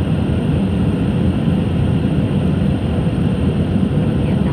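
Steady low roar of an Airbus A319 airliner in flight, heard inside the passenger cabin: engine and airflow noise through the fuselage.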